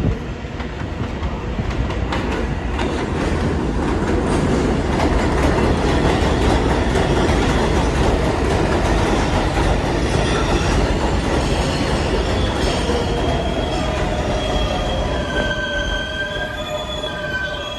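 New York City subway 4 train running through the station, a loud steady rumble of wheels on the rails. From about halfway through, the wheels squeal in several high, steady tones.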